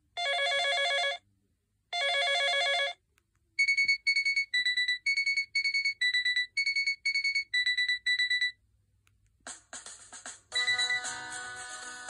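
Preloaded ringtones of a Lenovo TD16 phone previewing through its loudspeaker as the list is scrolled. First come two one-second buzzy electronic rings, then a fast run of beeps alternating between a higher and a lower note, about three a second. About nine and a half seconds in, a fuller melodic ringtone starts.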